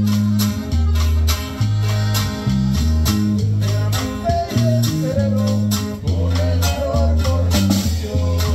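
Live norteño band playing a corrido: button accordion carrying the melody over electric bass notes and a regular snare-drum beat.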